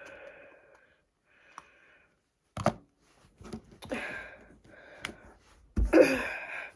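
Slime being handled: a few sharp clicks and pops with short squishing noises, the loudest about six seconds in.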